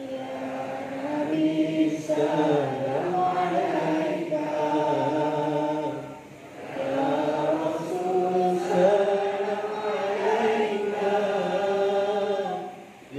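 Many voices chanting a selawat in praise of the Prophet in unison, in long melodic phrases, with a short break about six seconds in.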